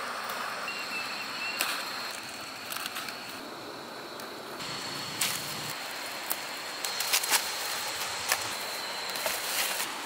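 Outdoor background noise with a faint steady high-pitched tone and scattered sharp clicks and knocks; the background changes about halfway through.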